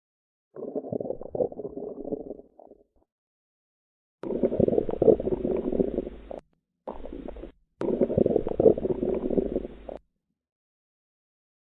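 Bowel sounds: gurgling and rumbling with quick pops. They come in four separate stretches of about two seconds each, the third much shorter, each cut off abruptly into silence. The first stretch sounds duller than the rest.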